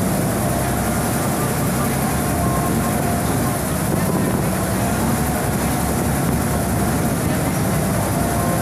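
Boat engine running steadily, heard from on board as the boat moves along a canal, with a constant drone and water and wind noise.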